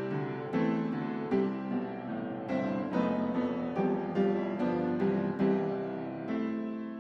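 Background piano music, a melody of single notes struck one after another.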